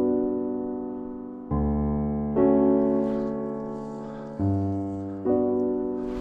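Background music: slow piano chords, each struck and left to fade before the next, about four new chords in a few seconds.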